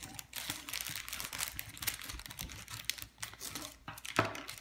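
Scissors snipping through a thin plastic polybag and the plastic crinkling as it is handled, in quick irregular clicks and crackles. A sharp tap stands out about four seconds in.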